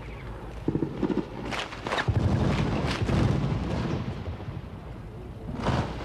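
Small-arms gunfire: scattered sharp cracks, two close together about a second and a half in, two more near two seconds, two near three seconds and one near the end, with a low rumble between them.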